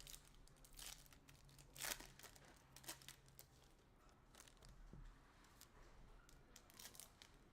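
Faint crinkling and scattered clicks of trading-card packs and cards being handled, with a few sharper crackles about two and three seconds in.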